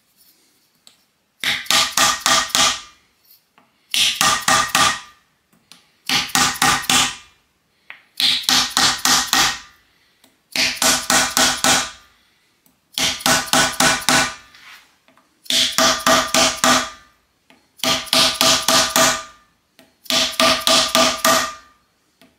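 Dead blow hammer striking a laminated plywood block on a linear rail, seating bolt-hole caps flush with the rail surface. The blows come in quick runs of five or six, each burst with a ring, and the runs repeat nine times, about every two seconds.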